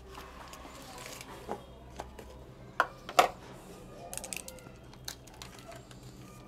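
Plastic cling film being peeled off a chilled mousse cake: soft crinkling and rustling of the film, with two sharp clicks near the middle.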